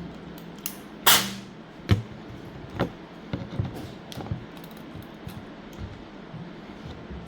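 Light clicks and taps of small hard plastic parts being handled, with one louder, brief rushing burst about a second in.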